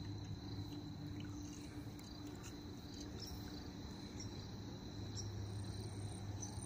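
Outdoor ambience: a steady high-pitched insect trill, with scattered faint bird chirps and a low steady hum underneath.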